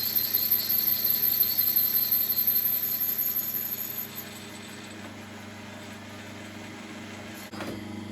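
9-inch South Bend lathe with a large boring head taking a 15-thou cut in aluminium plate: a high-pitched cutting noise that is steady, with no chatter, then stops about four seconds in as the cut ends, leaving the lathe's motor and drive running with a steady hum. A single click near the end.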